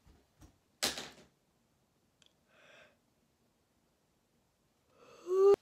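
A woman yawning: a long intake of breath, then her voice sounding briefly and loudly near the end, cut off by a click. A short sharp rushing noise comes about a second in.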